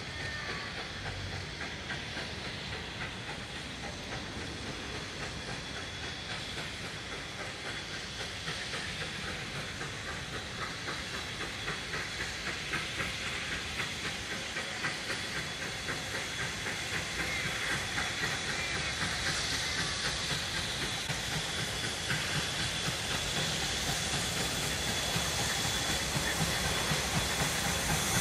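NSW 59-class 2-8-2 steam locomotive 5917 approaching with a train: steady steam hiss with a faint regular beat, growing louder as it nears.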